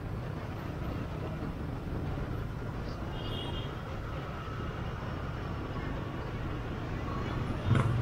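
Motorbike riding through city traffic: a steady low rumble of engine, road and wind. There is a faint short high beep a little over three seconds in and a short loud thump near the end.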